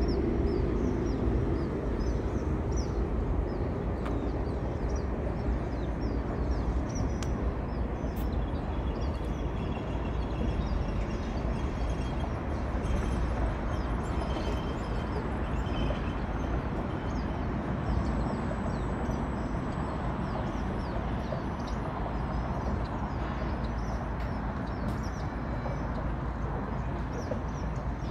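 Outdoor ambience: a steady low rumble with small birds chirping repeatedly over it.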